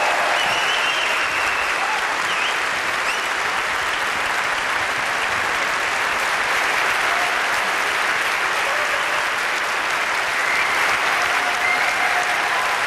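Large audience applauding steadily, a dense and even sound of many hands clapping.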